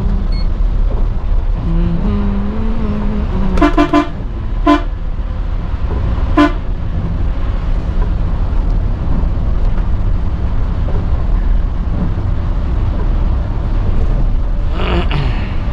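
Coach horn tooting in short blasts: a quick run of toots about four seconds in, then two single toots about a second and then two seconds later, over the steady low rumble of the coach's engine and road noise in the cab.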